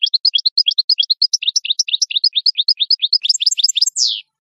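European goldfinch singing: a fast, even run of short high notes, each sliding down in pitch, about eight a second, ending with one longer buzzy note that falls, then cutting off abruptly near the end.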